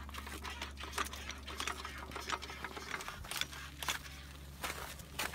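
Floor jack being worked by its long handle: irregular sharp clicks and crunches, several a second, over a steady low hum.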